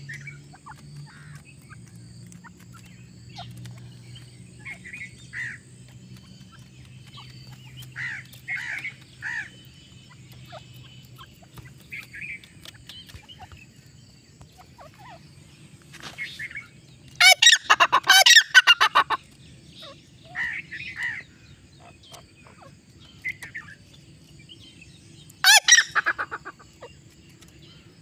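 Grey francolin calling: soft, short chirping notes scattered throughout, broken by a loud, rapid run of harsh notes lasting about two seconds past the middle, and a shorter loud run near the end.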